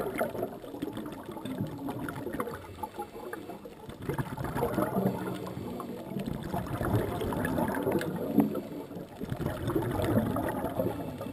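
Underwater scuba sound: a diver's exhaled regulator bubbles gurgling and crackling around the camera housing, in uneven swells a few seconds apart.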